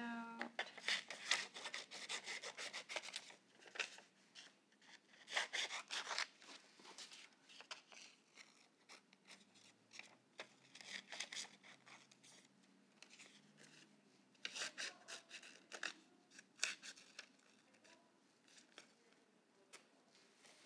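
Scissors snipping through paper in short runs of cuts separated by pauses, with the paper rustling and rubbing as it is turned and handled.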